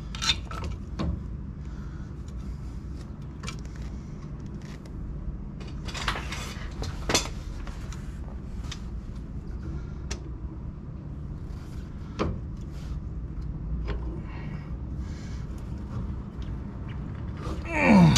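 Hand tools on a trailer wheel hub: locking pliers and a pick clicking and scraping on metal while the broken threads of a plastic hub dust cap are worked out of the hub, over a steady low hum. Near the end comes a louder creak that falls in pitch as the stuck piece gives.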